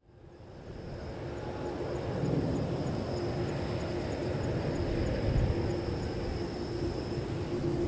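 Boeing 777-200ER's jet engines making a low, steady rumble as the airliner flies in on final approach, fading in over the first second or two, with a thin steady high-pitched tone above it.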